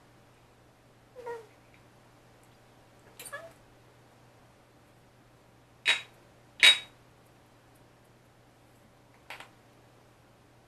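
Five short animal calls, some with a clear pitch that glides up or down. The two loudest come close together about six seconds in, and a fainter one follows near the end.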